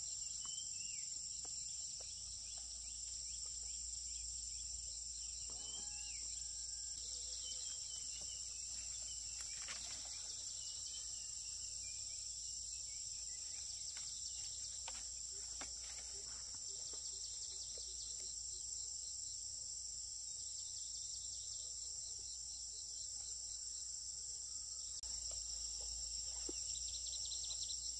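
A steady, high-pitched chorus of insects, with a few short bird chirps and scattered small clicks or knocks.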